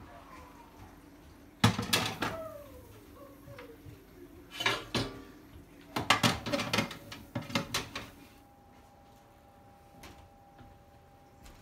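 A glass roasting dish knocking and clattering against the oven rack as it is slid in, with a sharp knock about a second and a half in and more clinks and bangs a few seconds later as the oven door is shut. A faint steady hum follows.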